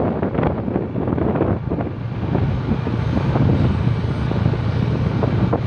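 Motorcycle riding along, its engine running steadily under heavy wind buffeting on the microphone.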